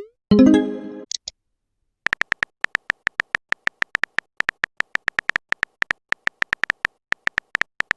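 Phone messaging-app sound effects: a quick rising swoop and a short message chime right at the start, then a long run of rapid keyboard typing clicks, several per second.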